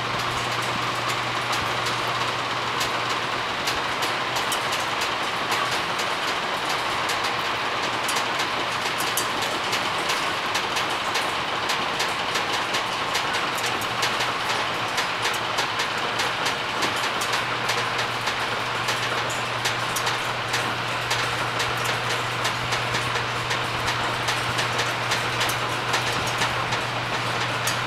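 Bi-fold hangar door being raised on its six new quarter-inch lift cables: a steady low motor hum with a constant rapid clicking and rattling from the door mechanism as the big steel panel swings up.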